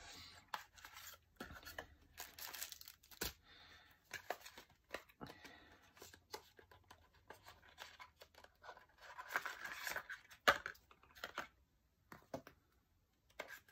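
Hands handling a small cardboard box of washi tape and stickers and its plastic packaging: quiet rustling, crinkling and scraping of card and plastic, with scattered sharp clicks and taps.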